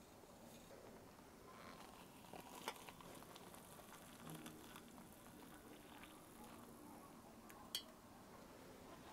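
Quiet handling of a metal kettle: hot water poured faintly into a metal mug, with two light metal clinks, one under three seconds in and a louder one near the end as the kettle is set back on the stove.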